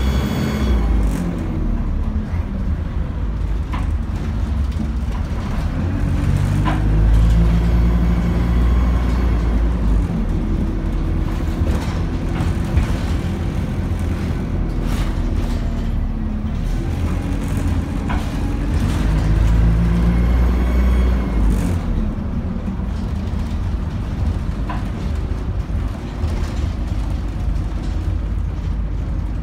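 Diesel engine of a Dennis Dart single-deck bus heard from inside the saloon while it drives, its pitch rising and falling twice as the bus pulls away and climbs through the gears. Short rattles and knocks come from the bus interior over the road.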